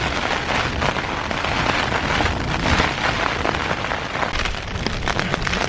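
Heavy wind-driven rain beating on the fabric of a Hilleberg Soulo tent: a dense, steady patter with many sharp drop hits, no let-up.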